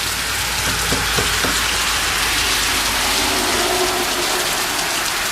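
Rain falling steadily, a loud, even hiss of drops hitting the ground and nearby surfaces.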